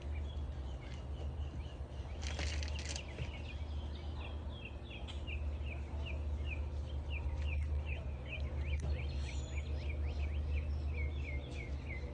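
A bird chirping over and over: short falling chirps, about three a second, over a steady low hum, with a brief hiss about two seconds in.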